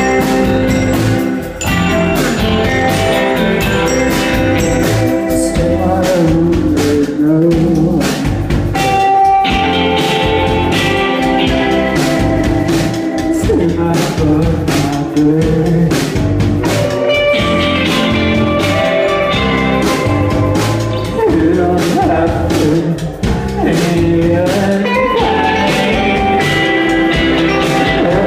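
A live band playing a song loudly, with a drum kit keeping a steady beat and singing over the instruments.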